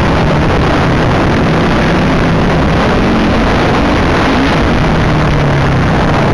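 Honda CRF450R motocross bike's four-stroke single-cylinder engine under way, its pitch rising and falling as the throttle is worked, heard from a helmet camera through loud wind rush.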